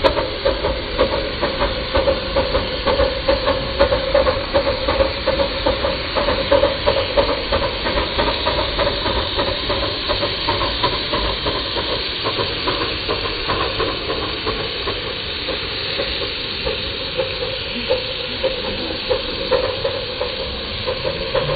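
5-inch gauge miniature live-steam locomotive working along the track, hissing steam from its cylinder drain cocks and exhaust in a pulsing chuff. The pulses ease into a steadier hiss after about halfway.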